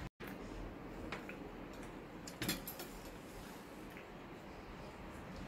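A few faint clicks and taps of metal forks against a hollowed-out watermelon and its plate, the sharpest about two and a half seconds in, over quiet room hiss.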